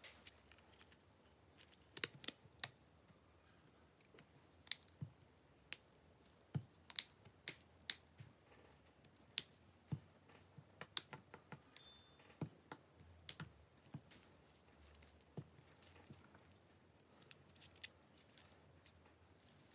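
Sharp, irregular clicks and taps of a smartphone's plastic and metal parts being handled and pressed together by hand during reassembly, the loudest cluster in the middle.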